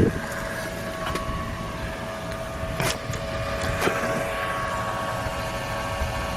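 Steady whine of several held tones over a low hum from a Tesla during a software update, with a few sharp clicks, one at the start and two about three and four seconds in.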